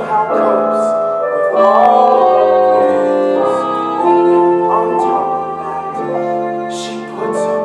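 Musical-theatre song played on piano, with long held notes that change every second or so.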